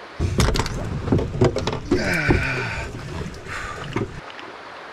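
Canoe being hauled out onto the rocks and swung up overhead: hollow knocks and bumps of the hull, with a squealing scrape in the middle, stopping suddenly about four seconds in.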